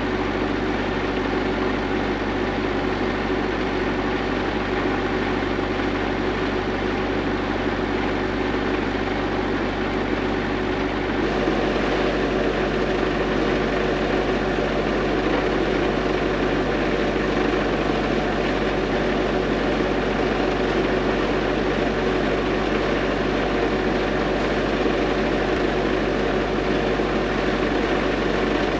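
An engine idling steadily, its low hum shifting slightly about eleven seconds in.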